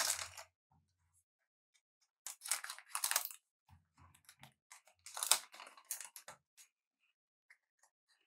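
A foil trading-card booster pack being torn open, its wrapper crinkling, in three bursts of crackly rustling: at the start, about two and a half seconds in, and about five seconds in.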